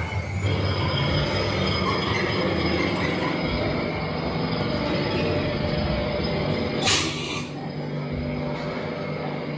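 A steady mechanical rumble and rattle with a short, loud hiss of air about seven seconds in.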